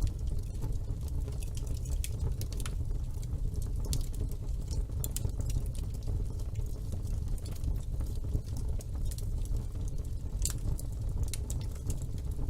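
Fire burning in a fireplace: a steady low rumble under irregular sharp crackles and pops.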